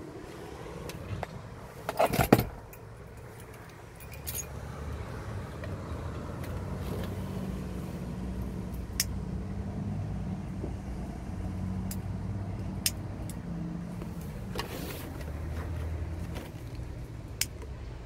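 Handling noise: a loud rustle about two seconds in, then a few sharp single clicks seconds apart as a disposable lighter is struck, over a low hum that rises and falls.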